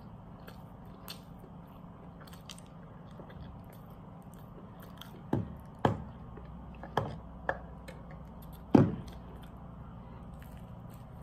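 Close-up chewing of a mouthful of fried chicken burger, with small clicks of food and wrapper. About halfway through, while a plastic tumbler is lifted to drink, come five sharp thuds over some three seconds, the last one the loudest.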